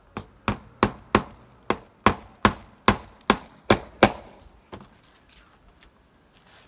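A hammer driving nails through new roofing felt into a wooden shed roof: about eleven sharp blows, roughly three a second. The blows stop about four seconds in, followed by one lighter tap.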